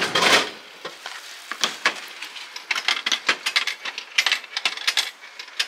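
Drink vending machine dropping the chosen bottle into its tray with a loud clunk at the start, then a long run of irregular clicks and clinks as change in 10-yen coins rattles out and is handled at the tray.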